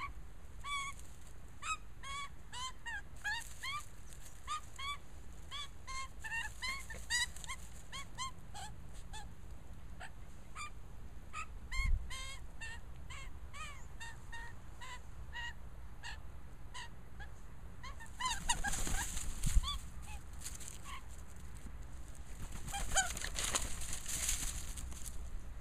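Young Australian magpie giving repeated short, honking squawks, several a second, thinning out about halfway through. Near the end come bursts of rustling and handling noise.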